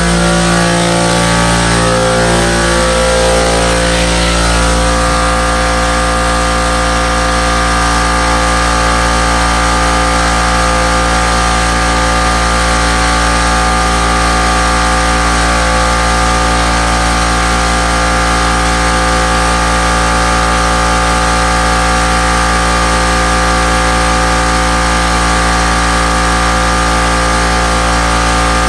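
Air compressor for the spray gun running: a loud, steady motor drone whose pitch wavers for the first few seconds, then holds even.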